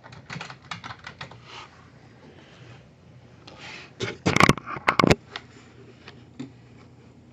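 Computer keyboard typing, a quick run of key clicks in the first second or two. About four to five seconds in comes a cluster of loud knocks and handling noise.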